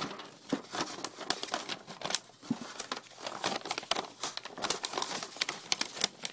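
Crinkling and rustling close to the microphone, with many irregular sharp crackles and taps.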